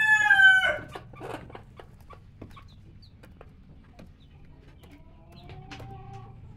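A rooster's crow ends about half a second in. Then a broody Orpington hen clucks softly beside her chick, with scattered light pecking clicks and a longer, steady call near the end.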